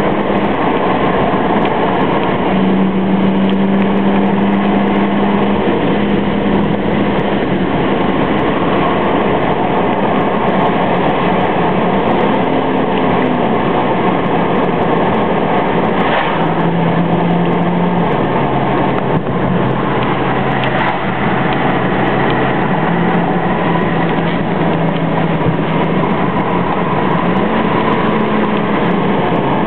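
BMW 335i's twin-turbo inline-six running at road speed, heard from inside the convertible over loud, steady wind and road noise. The engine note holds steady, steps down in pitch around the middle, and climbs again near the end as the car is driven through the gears.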